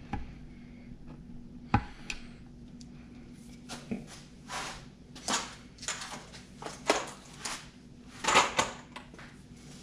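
Small metal hardware being handled by hand: screws and a metal picture hanger clinking and scraping against a wooden workpiece, with a sharp knock a little under two seconds in and a run of short clicks and rustles later on.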